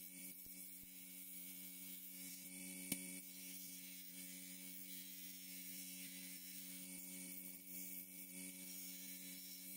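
Bench grinder motor running with a faint, steady hum while the rough edge of a paper shell hemisphere is ground smooth against its spinning wheel. One light click about three seconds in.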